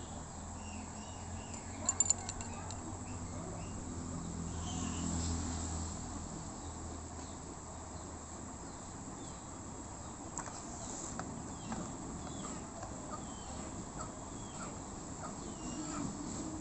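Steady low hum and background noise, with a few sharp clicks about two seconds in and faint, short high chirps scattered through the second half.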